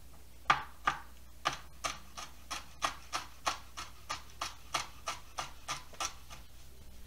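Kitchen knife slicing small sweet peppers on a plastic cutting board: a steady run of light chopping taps, about three a second, that stops shortly before the end.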